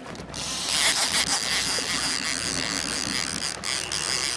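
Fishing reel's drag buzzing steadily as a hooked muskie pulls line off against it, starting just under a second in.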